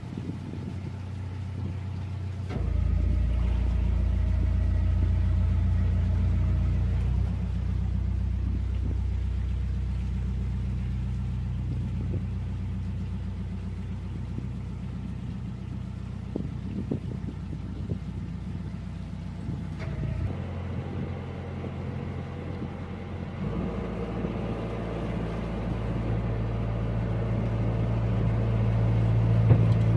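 Narrowboat's diesel engine running under way with a steady low note. The revs pick up about two and a half seconds in, ease off around twenty seconds, then climb again toward the end.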